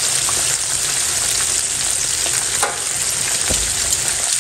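Crumb-coated chicken leg pieces frying in oil in a pan, a steady dense crackling sizzle with a few louder pops, the chicken cooking slowly over a low flame.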